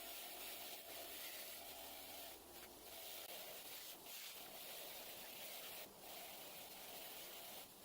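Faint, steady scratchy rubbing of a wire brush scrubbing paint off the cast-metal jaw of a small vise, broken by brief pauses a few times.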